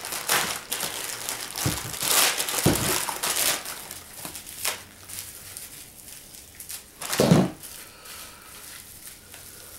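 Clear plastic packaging bag crinkling as it is handled and opened around a statue part, in irregular crackles, with a louder bump about seven seconds in.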